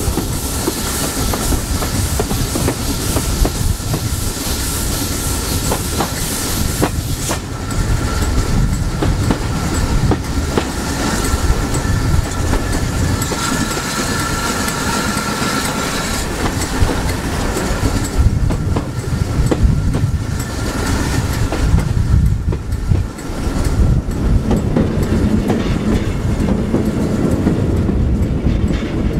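Steam-hauled heritage train running along the line, wheels clicking over the rail joints over a steady rumble, with a faint squealing tone in the middle.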